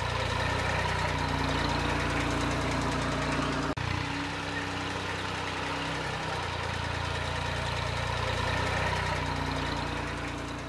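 VST Shakti 22 HP mini tractor's Mitsubishi K3 three-cylinder diesel engine running steadily at low speed. The sound breaks off for an instant a little under four seconds in, then fades near the end.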